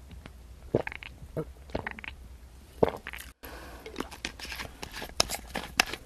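Close-miked gulps and swallows of a drink from a plastic bottle, a few separate gulps with small wet mouth clicks between them. A brief total dropout comes about three and a half seconds in.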